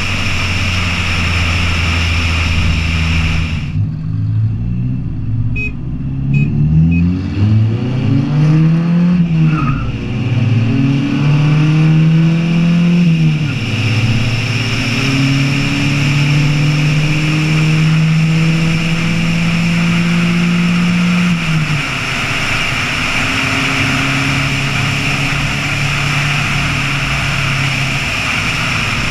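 Pickup truck engine accelerating hard through the gears, its pitch climbing and then falling back at each shift, then holding steady at speed before easing off about three-quarters of the way through. Steady wind and road noise lie under it.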